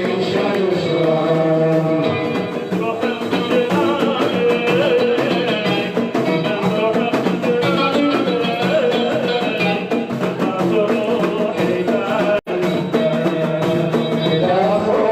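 Arabic music: a sung melody with accompanying instruments and drum. The sound cuts out for an instant about twelve seconds in.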